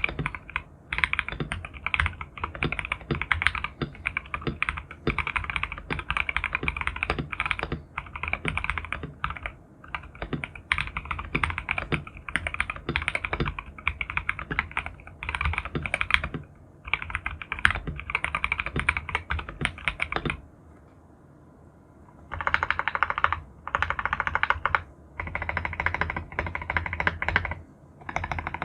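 A KBD67 Lite custom mechanical keyboard, with stock Durock L7 linear switches, a polycarbonate plate and PBT Cherry-profile keycaps, being typed on in fast continuous runs of key clicks. The typing stops for about two seconds about two-thirds of the way through, then resumes in short bursts.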